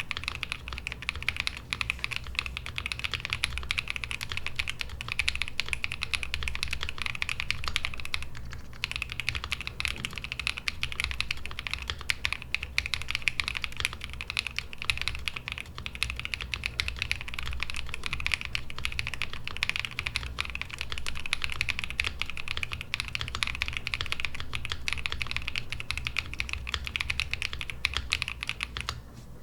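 Fast, continuous typing on a gasket-mounted V65 mechanical keyboard with a polycarbonate plate, lubed KTT Kang White linear switches and GMK Shoko keycaps: a dense run of quick keystrokes, with a brief pause about eight seconds in, stopping just at the end.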